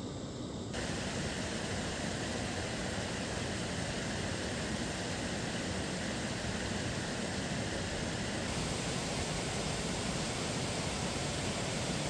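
Steady rush of a rocky mountain stream and waterfall, growing louder about a second in and changing slightly in tone around eight and a half seconds.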